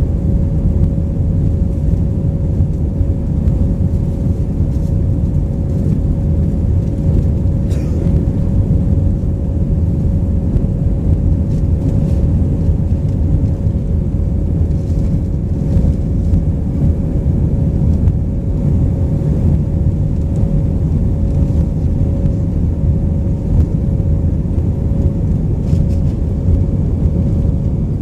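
Airliner cabin noise in flight aboard an Airbus A319 with IAE V2500 turbofans: a loud, steady, deep rumble of engine and airflow, with a constant hum-like engine tone running through it.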